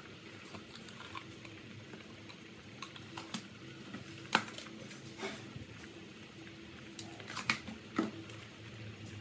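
A pot of pork bone and vegetable soup at a rolling boil, bubbling with scattered sharp pops over a steady low hum. The loudest pop comes about four seconds in, with two more near the end.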